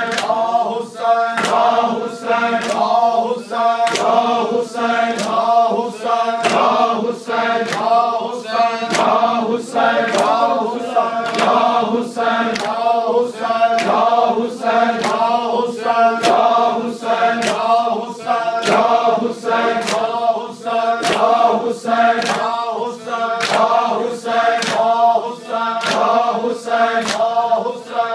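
Men's voices chanting a nauha (Muharram lament) in unison, a lead voice and the group, over a steady, even beat of open palms striking bare chests in matam.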